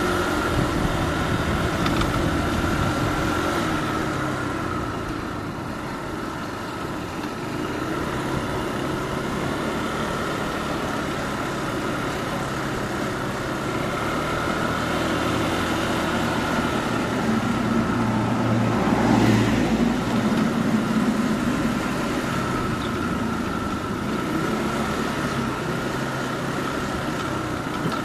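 Motorbike engine running as it rides slowly along town streets. The engine note shifts with speed and grows loudest about two-thirds of the way through.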